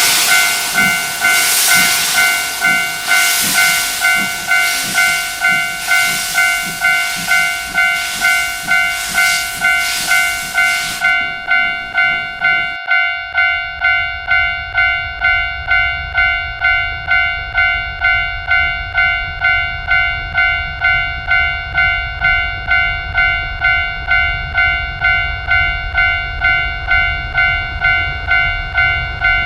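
Japanese railway-crossing alarm ringing steadily, its two-tone ding repeating a bit faster than once a second. For the first eleven seconds or so a steam locomotive's hissing chuffs sound over it, and they stop suddenly. From about thirteen seconds a low train rumble takes over beneath the bell.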